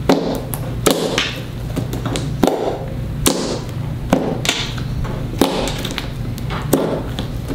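Fingers and a palm pressing, poking and kneading a thick glue-based slime, giving a string of irregular squishing pops, roughly one to two a second.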